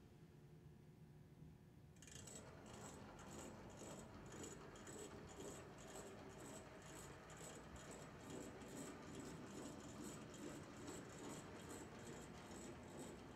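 HO-scale brass model steam locomotive (a 2-10-2 with a can motor) running along the track. About two seconds in a faint, steady rattle starts, with an even clicking roughly three times a second from its wheels and running gear.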